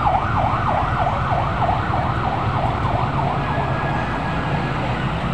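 Emergency vehicle siren sounding in a fast yelp, its pitch sweeping up and down about three times a second, then fading away past three seconds in, over a steady low hum.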